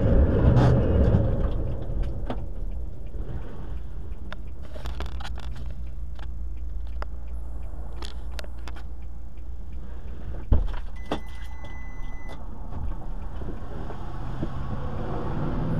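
Idling car heard from inside its cabin, with a heavy truck passing by at the start, then a steady low hum with scattered light clicks. A single knock comes about ten and a half seconds in, followed by a short steady beep.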